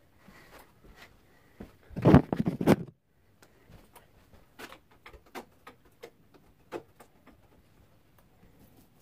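Paint roller work: a short clattering rattle about two seconds in, then scattered light clicks and taps.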